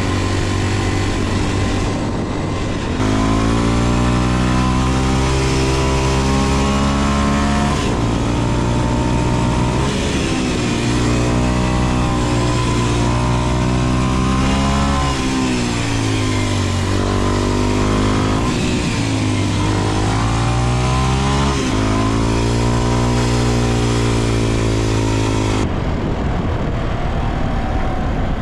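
Kawasaki KLX230SM's single-cylinder engine through its aftermarket Delta Barrel4-S exhaust, running under way as the bike accelerates and eases off, its pitch rising and falling several times, over wind rush. It gets louder about three seconds in.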